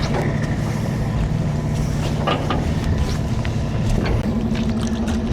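Boat motor running steadily under way, with wind and water noise; the engine note changes about four seconds in.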